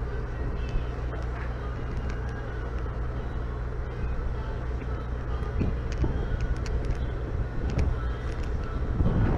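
Steady low engine hum of a docked paddle-wheel tour boat, with a few faint clicks. A gust of wind buffets the microphone near the end.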